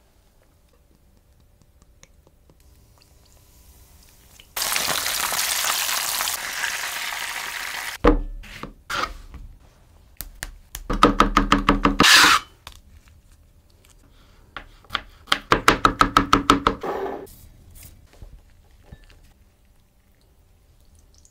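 Hot oil sizzling steadily for a few seconds as the floured trout fries, cutting off suddenly. Then a kitchen knife chops parsley in two quick runs of sharp strokes, several a second, each with a low knock.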